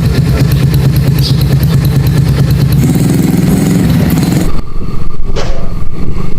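A small engine running steadily, rising a little in pitch about three seconds in, then cut off suddenly by a loud, uneven low rumble.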